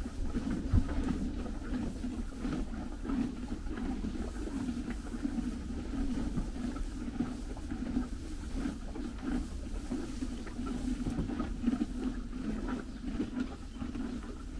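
Horses chewing hay close by: a steady, rhythmically pulsing crunching with rustling of the hay, over a constant low rumble.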